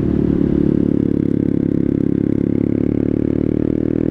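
2014 Honda Grom's 125cc single-cylinder engine running at a steady, nearly constant speed while the bike is ridden.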